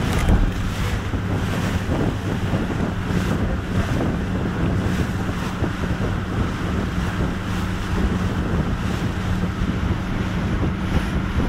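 Rigid inflatable boat running at high speed through choppy water: a steady engine drone under heavy wind buffeting on the microphone, with repeated splashes as the hull slams through waves and spray.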